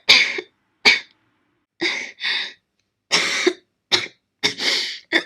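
A young woman coughing in a fit, a string of about eight short, harsh coughs with brief gaps between them.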